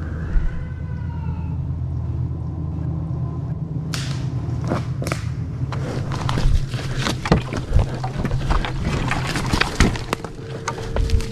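A short wavering, falling animal cry near the start, taken for a bobcat, then a run of sharp cracks of twigs snapping in the brush from about four seconds on: something moving close by. Under it all, the low steady running of an idling dirt bike engine.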